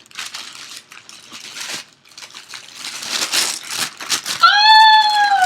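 Gift wrapping paper crinkling and rustling as a present is unwrapped. Near the end comes a loud, high, drawn-out squeal that rises and then falls in pitch.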